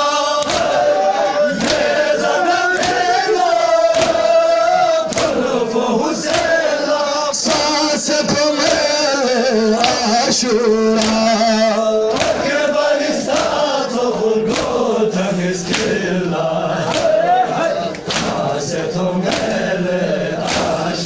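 Crowd of men chanting a Balti noha (Shia lament) in unison. The chant is cut by a steady beat of sharp slaps, the mourners' matam chest-beating.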